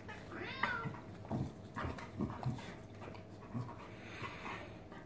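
Boxer dog panting in short low breaths while play-wrestling with a cat, with a brief rising and falling yowl about half a second in.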